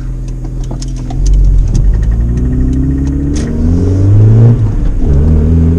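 Honda Civic's four-cylinder engine revving up as the car accelerates, loud and rough through a broken exhaust. The pitch climbs steadily, drops at a gear change about four and a half seconds in, then starts climbing again.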